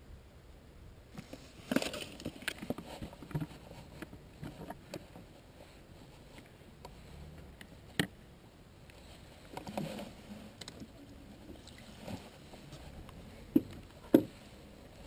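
Irregular handling sounds on a dock: a run of taps, clicks and rustles in the first few seconds, a single sharp click about halfway, then two sharp knocks near the end, the loudest, as a plastic bucket holding a freshly caught crappie is grabbed and moved.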